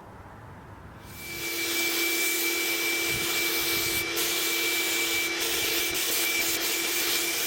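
Electric power sander switching on about a second in and running steadily on wood, a hiss of sanding over a steady motor hum and a high whine.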